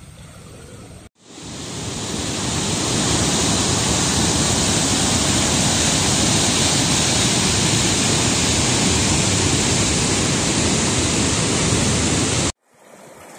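Steady, loud rush of a large waterfall heard from close above its brink, the Lower Falls of the Yellowstone River. It comes in about a second in, swelling over a couple of seconds, and cuts off abruptly near the end.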